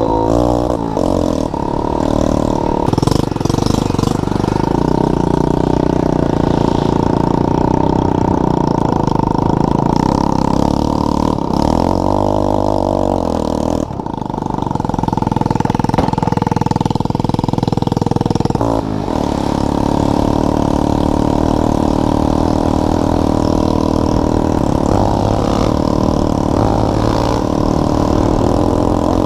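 Quad (ATV) engine running hard while riding, its pitch rising and falling as the throttle is rolled on and off, with two brief drops in revs, about midway and about two-thirds through.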